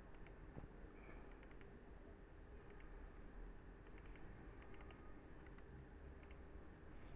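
Faint clicks from computer use, in quick clusters of two to four every second or so, over a faint steady hum.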